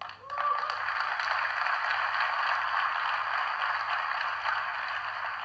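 Audience applauding for about five seconds, easing off slightly near the end, heard as played back through a screen's speaker.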